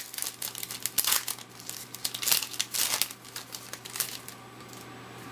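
Trading card pack wrapper crinkling as it is pulled free of its glue spot and torn open by hand, an irregular crackle that dies down about four seconds in.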